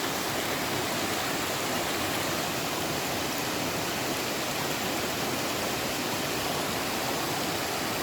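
Steady rush of fast-flowing mountain creek water cascading over rocks.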